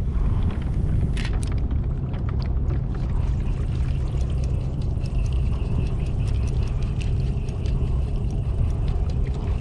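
Water sloshing and trickling beside a kayak during a fish release, over a steady low rumble of wind on the microphone.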